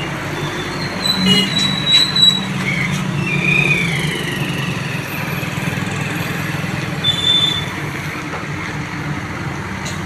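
Diesel engine of a JCB 3DX backhoe loader running steadily under load as its backhoe digs, with several brief high-pitched squeals, one sliding downward, a little after a second in, around four seconds in and near seven seconds in.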